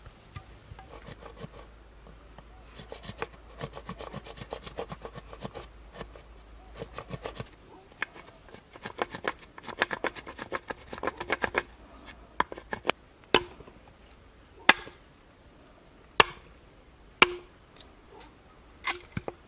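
A blade cutting into a green bamboo tube: first a long run of quick small chopping and scraping strokes, then, in the last third, single sharp chops about a second or more apart.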